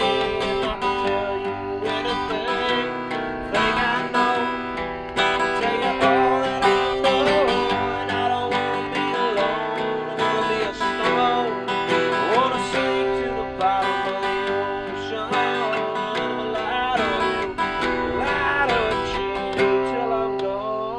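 Acoustic guitar music: strummed chords with a melody line that bends in pitch over them, a stretch of a song without words.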